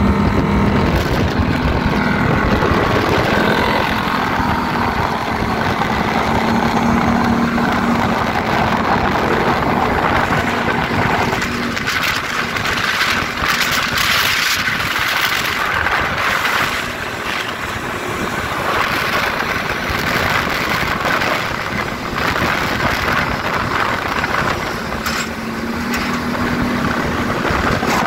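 800cc automatic ATV engine running steadily while riding on a road. Its hum is clearest at the start and near the end, with a gusty rushing noise over it through the middle.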